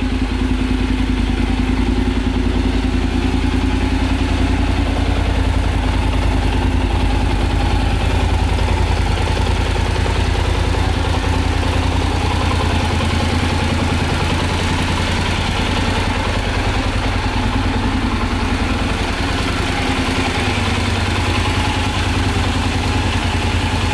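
Honda NC750X's 745 cc parallel-twin engine idling steadily through an aftermarket stainless slip-on silencer.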